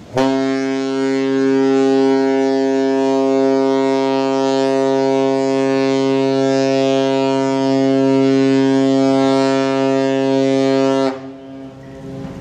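Large ship's horn sounding one long, steady blast of about eleven seconds, a deep tone with many overtones that starts and cuts off abruptly.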